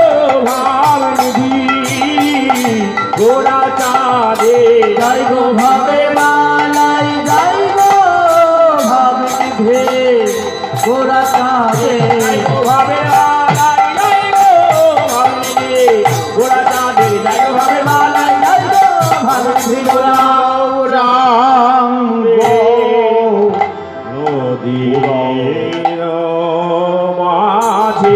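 Bengali kirtan music: khol drums play a fast, even beat under a wavering melody. The drumming drops out about twenty seconds in, and the melody carries on.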